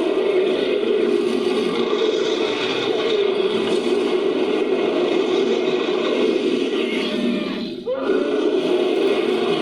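Designed creature sound effect: a long, rough, growling roar built from layered animal and monster roars, steady in level and breaking off briefly about eight seconds in before resuming.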